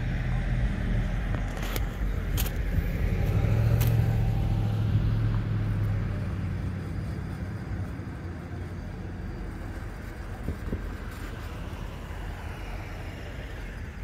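Hi-rail trucks running along the track, a low engine and wheel rumble that builds to its loudest about four seconds in and then slowly fades as they move away. A few sharp clicks come in the first four seconds.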